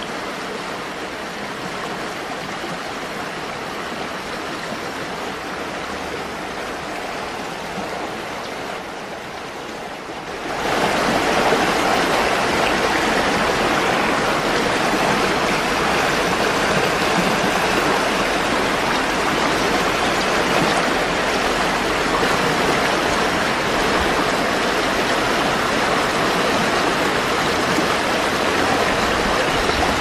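Steady rush of water from a waterfall splashing into a pool, stepping up clearly louder about a third of the way in and then holding steady.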